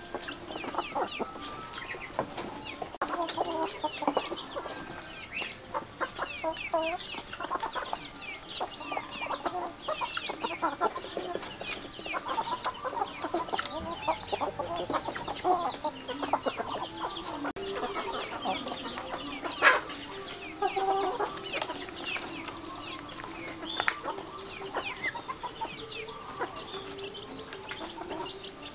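A flock of chickens clucking while they forage, many short calls overlapping without a break, with quick high chirps above them. One sharp, loud knock about two-thirds of the way through.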